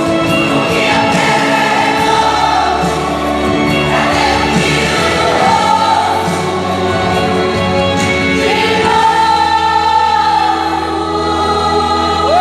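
A gospel choir singing with long held notes over a steady bass accompaniment.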